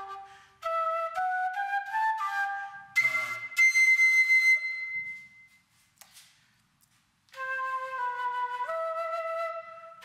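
Homemade quena, a notched end-blown flute, playing a melody of stepwise notes. About three seconds in a loud high note is held and dies away, then after a pause of about two seconds the tune resumes on lower notes.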